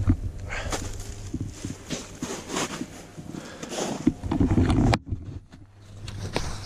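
Boots walking through old snow and dry grass and leaf litter: irregular crunching steps that pause about five seconds in.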